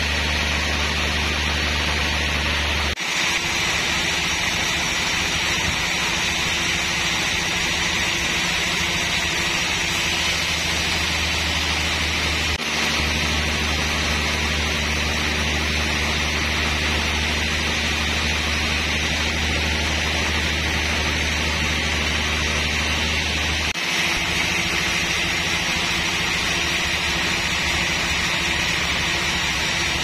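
Large band sawmill running and sawing through a trembesi (rain tree) log: a loud, steady hiss of the blade in the wood over the machine's hum. A deep low hum drops out about three seconds in, returns near the middle and drops out again.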